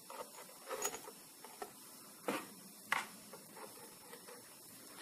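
Metal tweezers handling a small fossil specimen on a digital microscope stage: a few faint, short taps and scrapes in the first three seconds.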